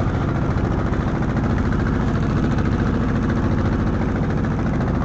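Fishing boat's engine running steadily, with a low, even note.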